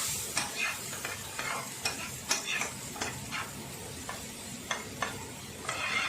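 Ginger-garlic paste sizzling in hot oil in a pan, stirred with a spatula that clicks and scrapes against the pan two or three times a second.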